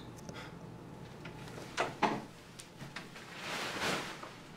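A couple of short knocks and light clicks about two seconds in, then a longer rustling scrape as a man gets up from his chair.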